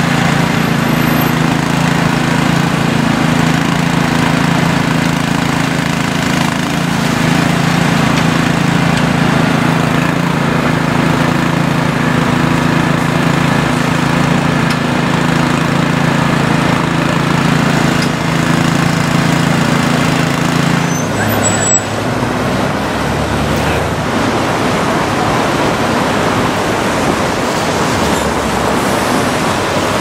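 A small engine runs steadily with an even hum. About two-thirds of the way through it gives way to steady street traffic noise.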